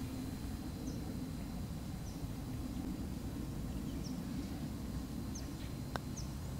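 Short, high bird chirps every second or so over a steady low outdoor background, and one sharp click near the end: a putter striking a golf ball.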